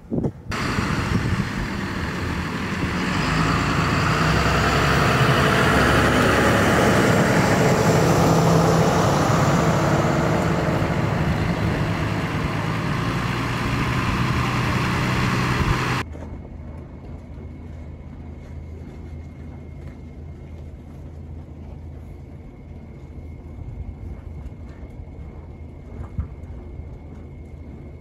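A motor vehicle's engine running close by with a loud rushing noise, swelling over the first several seconds and easing off a little, then cutting off abruptly about halfway through. After that, a quieter low engine rumble with a faint steady high whine.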